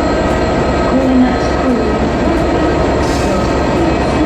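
Diesel-electric locomotive with an EMD two-stroke V12 engine running steadily nearby: a loud, even drone with a few steady whining tones over it.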